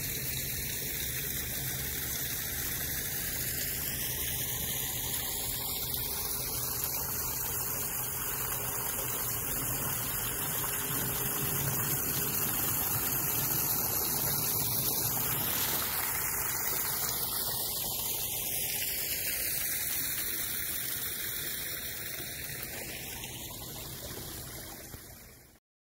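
Water pouring down a small stacked-stone waterfall into a pond: a steady rushing splash whose tone slowly sweeps up and down. It swells a little midway, fades over the last few seconds and cuts off just before the end.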